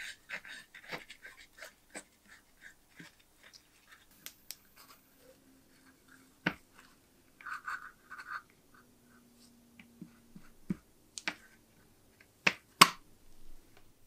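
A small paintbrush scrubbing liquid over the rusty knurled metal body of a spark lighter, in short bursts of bristle scratching, with scattered sharp clicks and taps; the loudest knocks come near the end.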